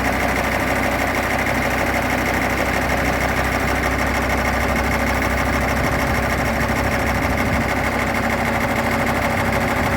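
Engine of vintage farm machinery running steadily at a constant speed, as for working a roto baler.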